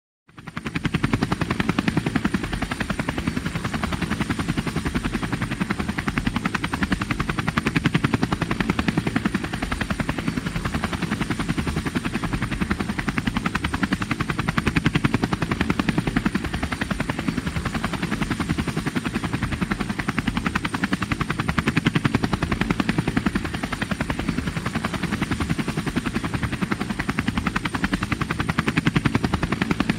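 Military helicopter in flight, its rotor blades chopping in a fast, even beat over the engine noise, with a thin steady high whine. It begins right at the start and swells gently in loudness every several seconds.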